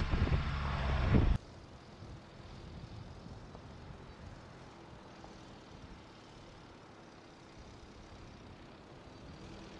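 Loud tyre rumble over gravel with wind on the microphone from a wheel-mounted camera, cut off abruptly about a second in. Then the faint, steady sound of the Mercedes-Benz GLB 200 d's diesel engine and tyres as the SUV drives slowly down a dirt track.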